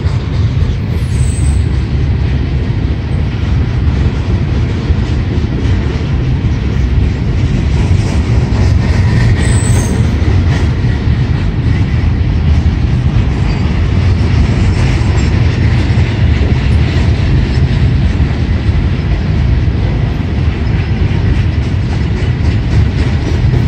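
Norfolk Southern freight train of gondola cars rolling past. Its steel wheels make a steady, loud rumble on the rail, with repeated clicking as they cross rail joints.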